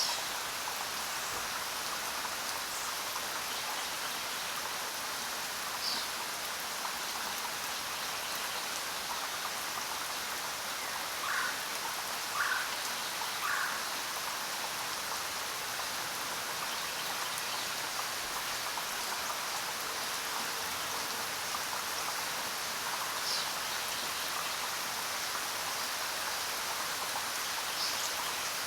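Steady rain falling in a jungle, an even hiss of drops on foliage and surfaces. A few brief bird calls cut through it: one about six seconds in, three lower notes in a row around the middle, and two more high ones near the end.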